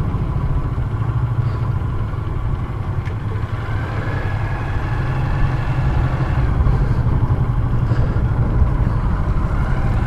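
Honda CG 125's single-cylinder four-stroke engine idling steadily, heard close up from the rider's seat.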